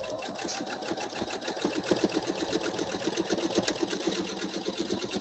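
Pfaff computerized sewing machine running steadily while free-motion quilting, its needle stitching through the layers of a quilt in a fast, even run of strokes.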